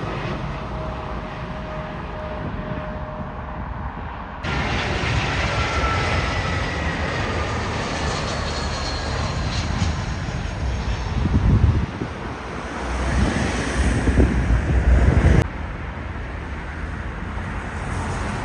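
Jet airliner engines passing, a whine sliding down in pitch over a steady roar. The sound jumps abruptly in level twice, and a heavy low rumble swells twice in the later part.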